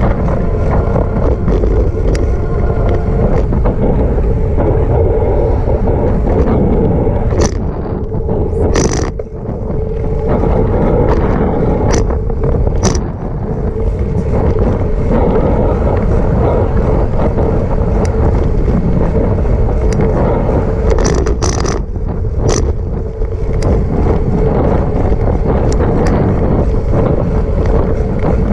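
Wind and rolling noise of a bicycle ride picked up by a camera mounted on the bike: a loud, steady rumble broken by a handful of sharp clicks or knocks, a few around a third of the way in and more past two-thirds.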